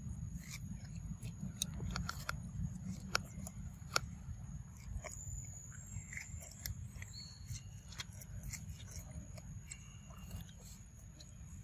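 A macaque biting and chewing ripe mango flesh: irregular wet smacks and crunchy clicks of eating.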